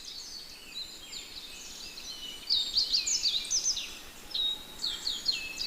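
Several small birds chirping and singing in a dense chorus of quick, high chirps, busier and louder from about halfway through.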